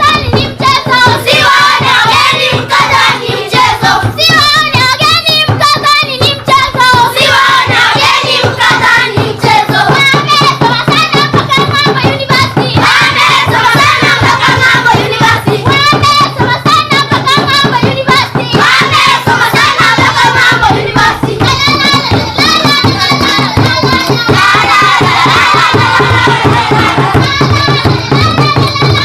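A group of children singing a song together to steady, rhythmic hand clapping.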